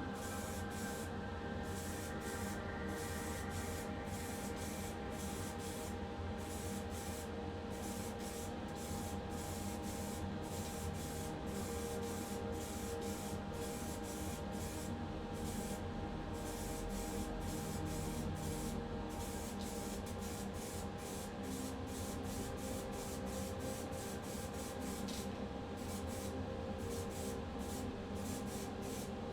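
Primer being sprayed onto a small diecast car body: a hiss in many short, repeated bursts over a steady hum.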